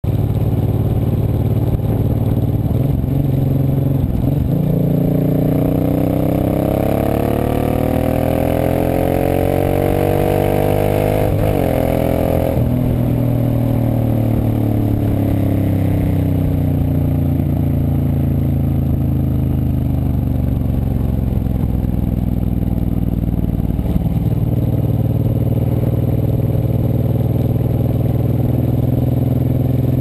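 Suzuki Boulevard M109R's 1783 cc V-twin engine running under way, with its revs climbing for several seconds from about four seconds in. After a short break around twelve seconds in, the revs fall away slowly, then hold steady near the end.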